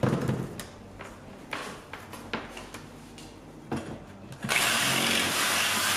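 Power drill widening a bolt hole, in several short bursts and then a steady run for the last second and a half that cuts off suddenly.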